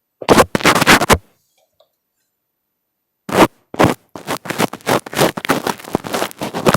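Fingers rubbing and scratching directly on an earphone microphone, close and loud. A one-second burst is followed by about two seconds of silence, then quick rubbing strokes, several a second.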